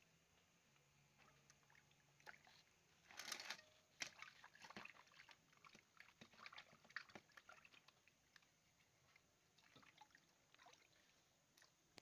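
Faint water sloshing and dripping in a steel bowl as hands rinse pieces of peeled raw papaya, with a run of small splashes and knocks from about three seconds in, thinning out after about eight seconds.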